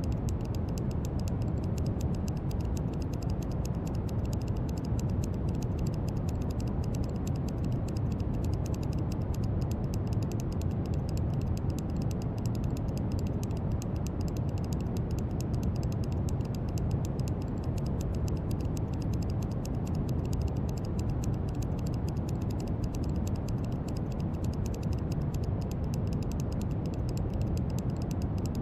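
Brown noise: a steady, deep rushing hiss, strongest in the low end, unchanging in level.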